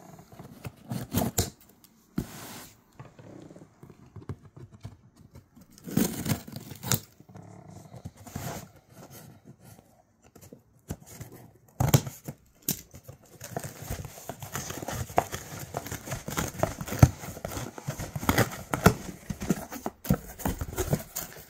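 Scissors slitting the packing tape on a cardboard box, with scattered scrapes and knocks of the cardboard. From about halfway through, the box flaps are opened and the honeycomb kraft-paper packing inside crinkles and rustles continuously as a hand handles it.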